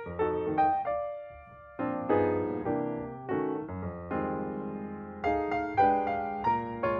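Background piano music: notes and chords struck and fading away in a steady melody.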